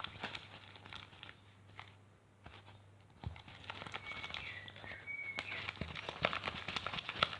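Runny slime being stirred in a bowl with dish soap and salt: a fast run of small wet, sticky clicks and crackles.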